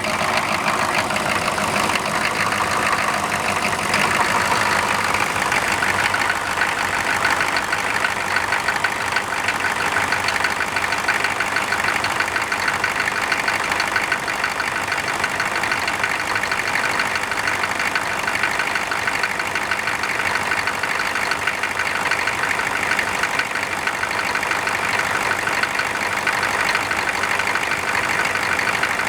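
Engine idling steadily just after a cold start, with the constant rush of its cooling fan. The fan is turning with the engine cold when it should disengage, which the owner takes to mean the fan is not disengaging.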